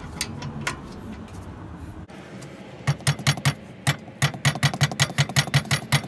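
Ratchet wrench clicking on a rear brake caliper bolt. About three seconds in it breaks into a fast, even run of clicks, roughly five a second.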